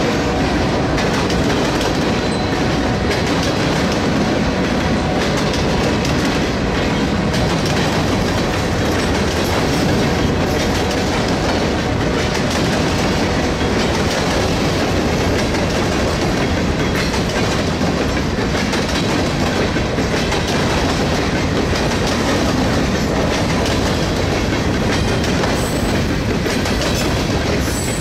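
Freight train cars, boxcars and covered hoppers, rolling past close by: a loud, steady rumble of steel wheels on rail, laced with a continuous run of wheel clicks.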